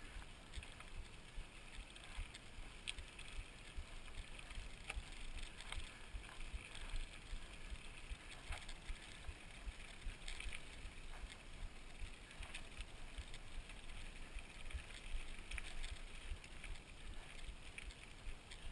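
Mountain bike ridden on a dirt trail: steady tyre and trail noise with many scattered clicks and rattles from the bike, and low wind buffeting on the microphone.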